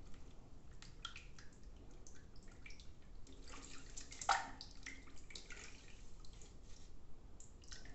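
A soapy synthetic shaving brush being rinsed in water: irregular splashing and dripping, with one louder splash about four seconds in.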